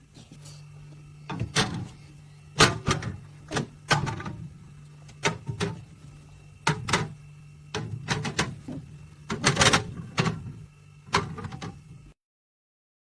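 Knocks and clicks from a compact fridge being handled, its door and plastic fittings opened and shut, over a steady low hum. The sound cuts out completely near the end.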